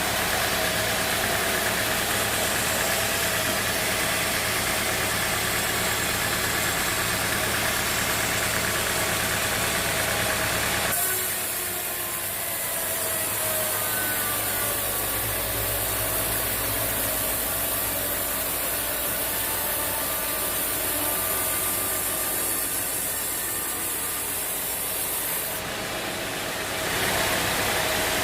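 Sawmill machinery running steadily, an engine-like hum with a few steady tones; the sound shifts abruptly about a third of the way in and again near the end.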